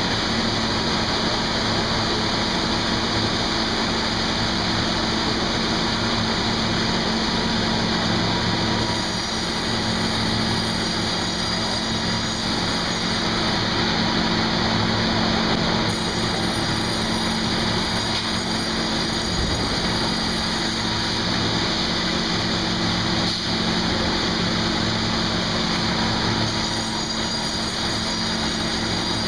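Sawmill machinery running steadily: a constant mechanical hum with even noise over it, holding level throughout.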